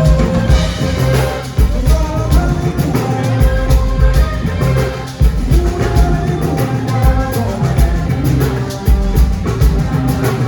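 A live band playing Ghanaian frafra gospel highlife, with a drum kit and bass keeping a steady beat under singing and melodic instrument lines.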